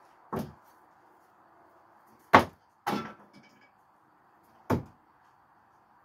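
Screwdrivers thrown no-spin striking a wooden target board: sharp knocks roughly two seconds apart, four in all. The loudest is followed about half a second later by a second, longer clatter that rings briefly.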